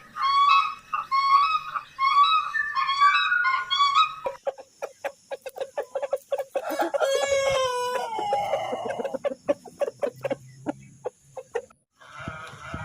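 Domestic fowl calling: a quick run of short, repeated pitched calls, then after a cut scattered clicks and one long call that falls in pitch.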